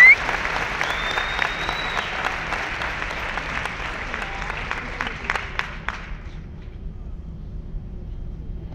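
Audience applauding, with a couple of high whoops in the first two seconds. The clapping thins out and dies away about six seconds in.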